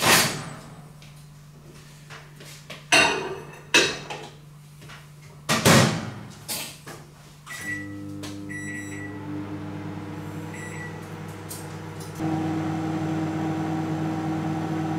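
Microwave oven being loaded and started: several loud clunks as the door is opened, the dish set inside and the door shut, then a few short keypad beeps and the oven starts running with a steady hum. The hum gets louder about twelve seconds in.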